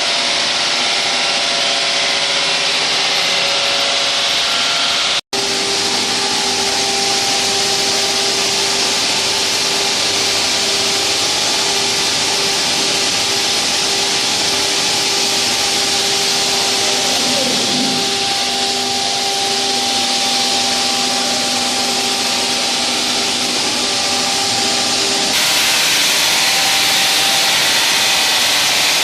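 Diamond wall saw cutting concrete: a steady, loud grinding hiss with steady humming tones underneath, cut off for an instant about five seconds in and turning brighter near the end.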